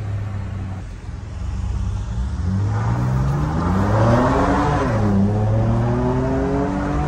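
Ford Ranger Raptor's 3.0-litre twin-turbo V6 petrol engine and exhaust accelerating hard, heard from inside the cab. A steady drone picks up about two seconds in, the revs climb sharply, drop suddenly at an upshift near five seconds, then climb again.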